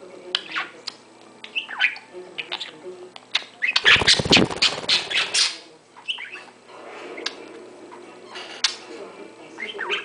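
Budgies chirping and squawking in short scattered calls. About four seconds in comes a loud burst of scuffling noise lasting about a second and a half.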